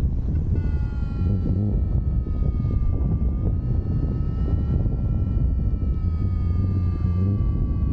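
Wind rushing over the microphone of a paraglider in flight. From about half a second in, a steady whining tone runs over it, slowly dropping in pitch.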